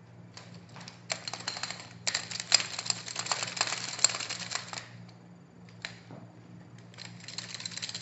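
Miniature light stand's thin metal tube sections, legs and plastic fittings rattling and clicking as it is handled and unfolded. A rapid clatter comes in two spells, with a single click between them. The rattle goes with a stand that seems rickety and not very well made.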